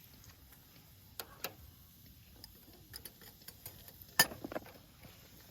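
Burning firewood crackling, with scattered sharp pops and ticks: a pair a little over a second in, and the loudest pop just past four seconds, followed by a quick flurry of smaller cracks.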